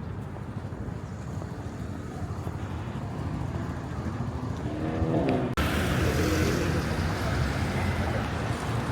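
City street traffic noise with a vehicle engine rising in pitch as it accelerates midway. The sound then cuts abruptly to louder, hissier traffic noise.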